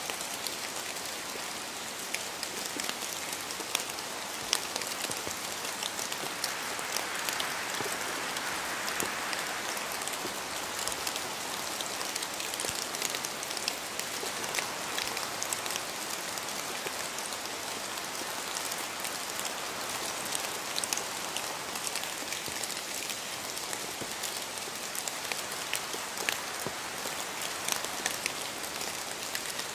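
Steady rain falling, a continuous hiss dotted with many small sharp drop ticks on a hard surface.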